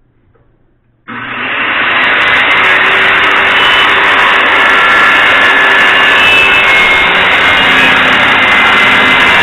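Radial arm saw switched on about a second in, its motor and blade running loud and steady as it cuts through a wooden board.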